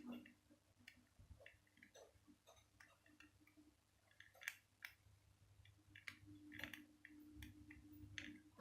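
Near silence: faint, scattered clicks over quiet room tone.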